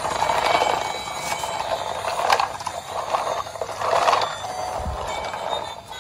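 Battery-powered plastic toy train running, its small motor and gears whirring and rattling as it moves over a stone tile floor. The sound swells and fades a few times, with a sharp click a little past two seconds.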